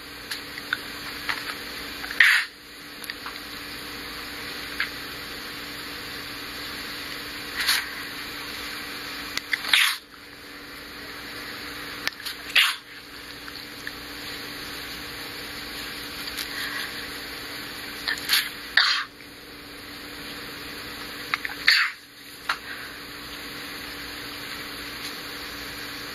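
A person sneezing over and over in a sneezing fit: about six or seven sharp sneezes a few seconds apart, two of them close together about three-quarters of the way through.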